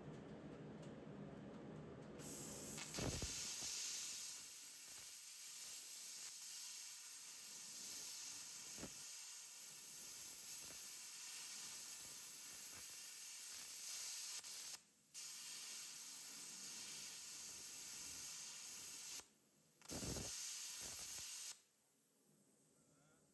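Plasma cutter cutting through frame rivets: a steady hiss of the cutting arc and air that starts a couple of seconds in, breaks off twice briefly, and stops suddenly near the end.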